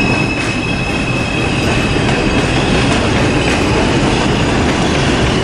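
New York City subway train running on its rails after the doors close, a steady rumble of wheels on track with a high whine that fades over the first couple of seconds.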